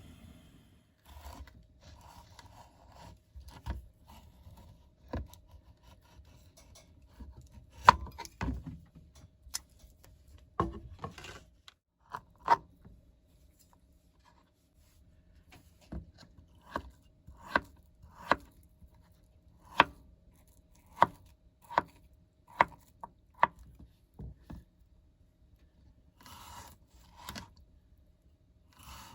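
Knife chopping on a cutting board: sharp knocks, scattered at first, then an even run of them at a little over one a second, with scraping and handling sounds in between.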